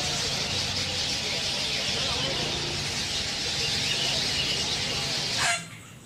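A large flock of cucak keling birds chattering all at once in a dense, continuous din. The chorus cuts off suddenly near the end with a quick downward glide.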